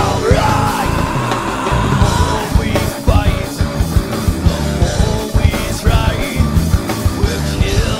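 Rock band playing live: drum kit with cymbals, electric bass and electric guitar, with a man's voice singing over them.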